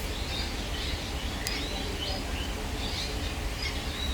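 Small birds chirping, short repeated calls every half second or so, over a steady low rumble, with one sharp tick about a second and a half in.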